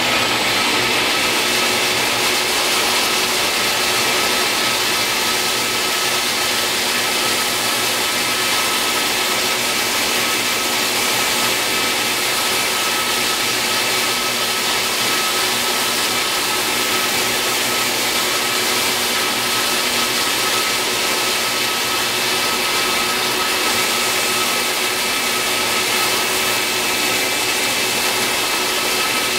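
A Reliant 6x48-inch belt sander and a shop vacuum running together with a steady whine, while a fretboard held in a rocking radius jig is sanded on the 80-grit belt.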